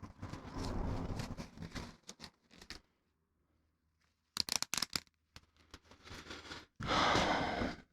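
Packaging being handled and rummaged through: a rustle for the first two seconds, a few sharp clicks past the middle, and a louder rustle with tearing near the end.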